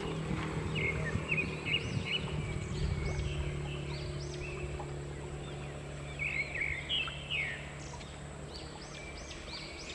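Birds chirping in short, quick calls repeated throughout, over the steady rush of a small flowing stream. A low steady hum underneath fades out near the end.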